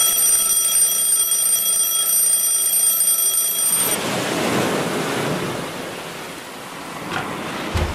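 Twin-bell alarm clock ringing with a steady metallic tone. It cuts off about four seconds in as a hand silences it. A broad rushing noise follows, with a low thump near the end.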